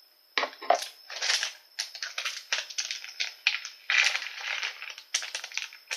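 Small hard candy beads being tipped from their packet into a plastic tray compartment: a run of irregular, short rattling bursts.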